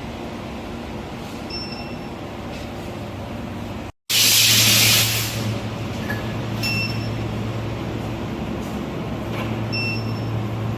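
Induction melting furnace equipment running with a steady machine hum and short faint high beeps every second or two. After a brief cut about four seconds in, there is a loud hiss lasting about a second, and the low hum is stronger afterwards.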